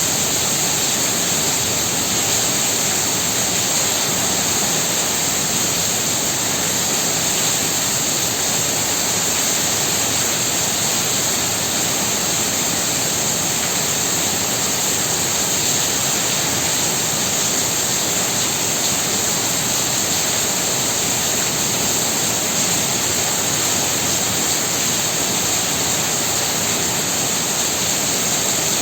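Heavy rain falling steadily, a dense, even hiss with no separate drops standing out.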